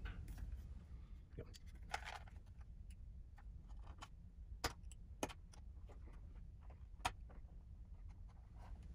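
Knife blade scraping and prying along the seam of a plastic cassette shell, making faint, scattered clicks and scratches as the sealed halves are worked apart.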